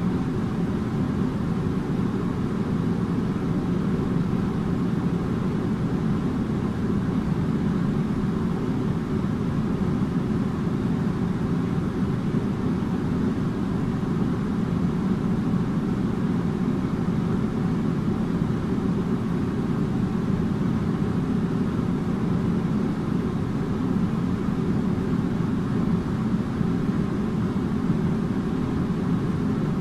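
Air conditioner running steadily: a deep, even drone and rush that does not change.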